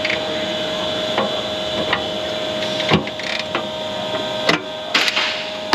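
Socket wrench on a long extension working a rusted 10 mm heat shield bolt, which was soaked with penetrating oil and is hard to break free: a few sharp clicks and creaks at irregular intervals, with a cluster near the end, over a steady hum.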